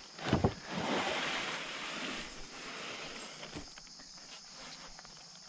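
Lengths of pine board knocking together as they are lifted off a stack, with two knocks near the start followed by a rustle that fades over a couple of seconds.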